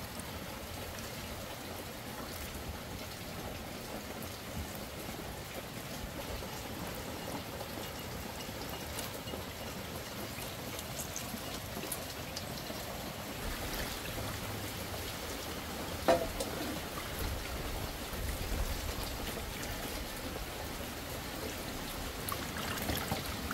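Light drizzle falling: a steady, even patter of rain, with a single knock about two-thirds of the way through.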